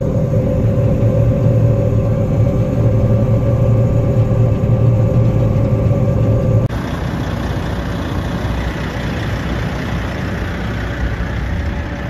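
Engine of harvest machinery running steadily with a low hum. A little over halfway through the sound cuts off abruptly to a rougher, noisier engine sound.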